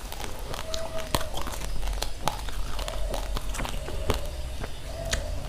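Raw rice grains being chewed close to the microphone: irregular sharp crunches, several a second, over a steady low hum.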